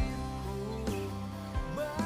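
Background music: a pop song with a sung melody over instruments and a steady beat.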